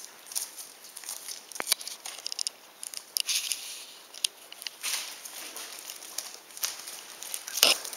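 Newspaper crinkling and rustling under puppies scrambling and wrestling on it, in irregular scratchy bursts with a few sharp clicks and a louder rustle near the end.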